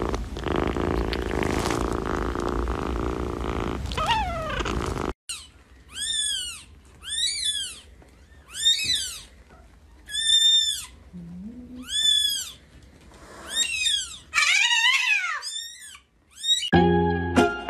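A kitten purring steadily while being stroked, then, after a cut, a tiny newborn kitten mewing over and over. The high, thin mews rise and fall, about one a second, with a quick run of several together near the end. Music begins just before the end.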